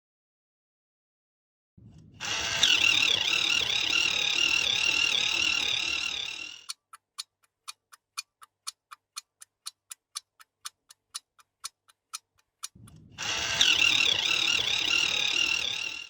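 Clock ticking steadily, about three to four ticks a second, between two bursts of loud, rapidly warbling alarm ringing of about four seconds each.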